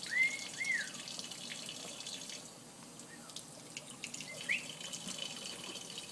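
Tap water running steadily into a sink, with a blue-headed pionus parrot giving two short arched calls near the start and one short rising call about four and a half seconds in.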